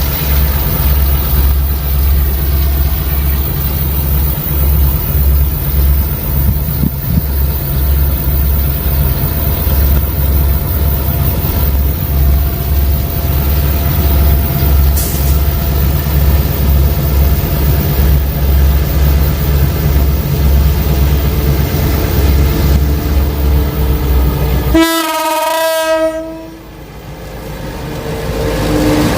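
Diesel-electric locomotive engine running steadily with a deep, pulsing beat, then a short horn blast of about a second near the end. After the blast the engine sound drops away and then builds back up.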